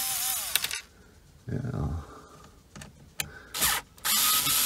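Cordless drill/driver spinning out small screws. Its motor whines and winds down in the first second, a few knocks and clicks of handling follow, and the motor starts again steadily about four seconds in.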